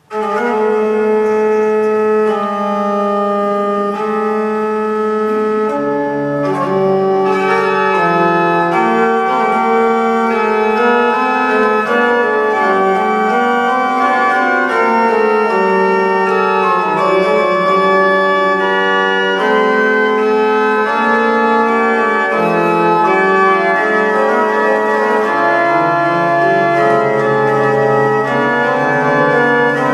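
Organ music coming in suddenly: held chords in several voices over a moving bass line, the notes changing about once a second.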